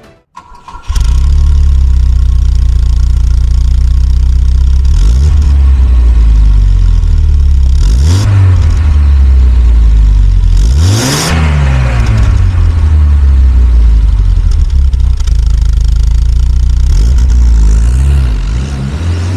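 1973 Volvo P1800 ES's rebuilt two-litre fuel-injected four-cylinder engine idling, heard at its twin tailpipes. It is blipped up and back down three times, each higher than the last, the biggest about eleven seconds in, then given a couple of short blips near the end.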